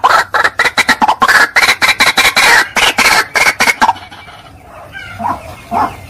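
White-breasted waterhen (ruak-ruak) calling in a rapid, harsh, repeated series, about five calls a second. The calls drop away after about four seconds to a few faint notes, then start building again near the end.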